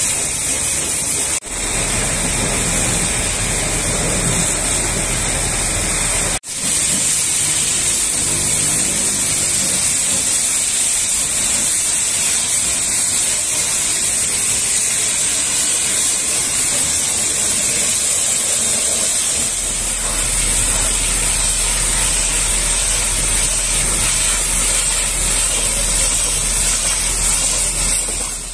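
High-pressure washer jet spraying water onto truck bodywork, a loud steady hiss that breaks off for an instant twice in the first seven seconds.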